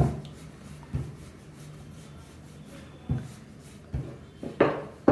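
Wooden rolling pin rolling samosa dough on a wooden tabletop, with dull knocks as the pin comes down on the board: one at the start, one about a second in, and three closer together near the end, the last the loudest, with soft rubbing of the pin between.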